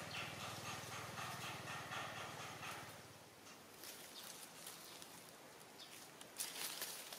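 Faint rustling and scratching with soft clicks as a macaque grooms its nursing infant's fur. A low steady hum fades out about three seconds in.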